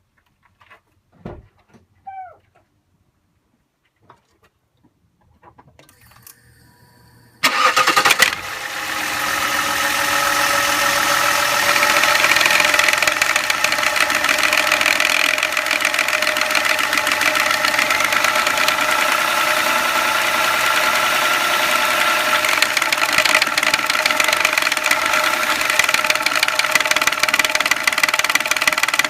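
A BMW M57D30 inline-six diesel is cranked and starts about seven and a half seconds in, after a few faint clicks, then idles steadily with a rattle. The rattle comes from the crankshaft pulley vibration damper, whose rubber layer inside has torn apart.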